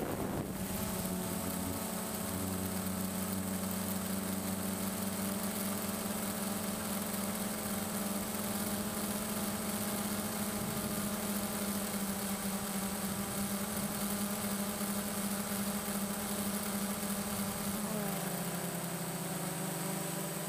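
DJI Phantom quadcopter's motors and propellers humming steadily, heard from the camera on board, with a thin high whine above the hum. About eighteen seconds in, the pitch drops and splits as the motors change speed.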